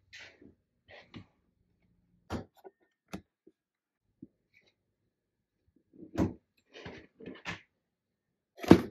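An iPad and a Keypad Pro keyboard case being handled and fitted together: a series of short knocks and plastic-and-metal clacks with pauses between, the loudest near the end.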